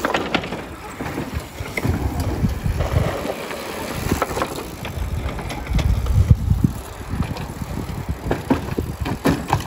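Gusty wind buffeting the microphone: uneven low rumbling that swells and fades every second or so, with scattered faint clicks.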